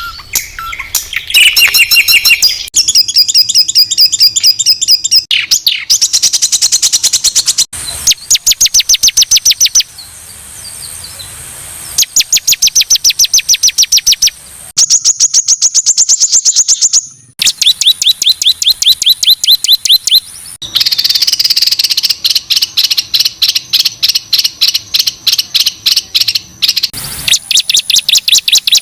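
A songbird singing loud, harsh, high-pitched rapid-fire phrases, the 'tembakan kasar' used to tutor competition birds. Each phrase is a fast train of about ten sharp notes a second lasting two or three seconds, followed by a short pause and a new phrase at a different pitch.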